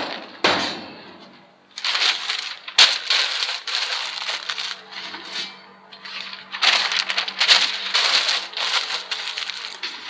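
Sheets of newspaper being crumpled by hand and packed into a metal charcoal chimney starter, crackling and rustling in two long stretches, with one sharp tap about three seconds in.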